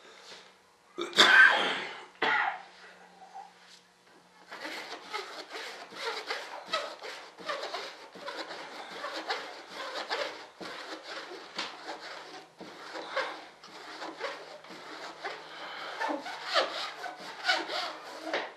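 Brush scrubbing and stippling epoxy resin into wet carbon-fibre cloth on a wing mould: a steady run of rapid, scratchy strokes that starts about four seconds in, working resin into the dry, light spots. A brief loud noise comes about a second in.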